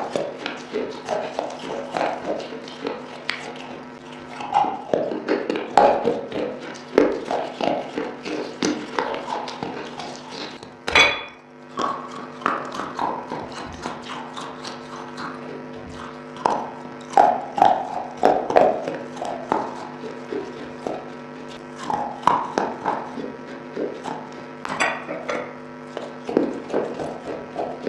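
Pieces of baked clay pot being bitten and chewed, a dense run of irregular wet crunches and cracks, over a steady low electrical hum.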